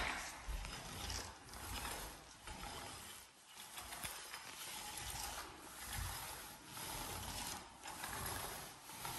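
Roller on an extension pole rolling wet clear coat across a hardwood floor, with a faint mechanical rattle from the roller frame, in repeated back-and-forth strokes.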